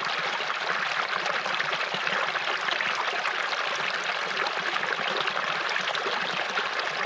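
Shallow rocky creek running and trickling through a small cascade between boulders, a steady sound of flowing water.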